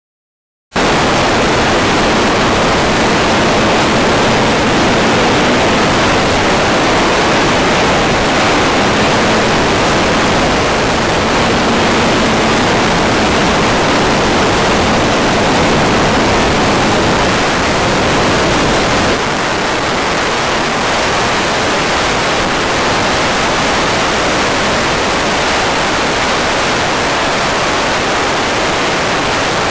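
Loud, steady hiss of radio static from an analog FPV video receiver's empty audio channel. It cuts in abruptly about a second in.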